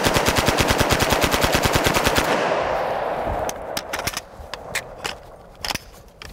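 H&K UMP45 submachine gun firing a long fully automatic burst of .45 ACP, about ten shots a second, stopping about two and a half seconds in. The echo fades after it, with a few scattered sharp pops.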